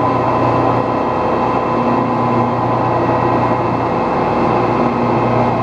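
Metal lathe running steadily, a constant machine hum with a thin whine over it.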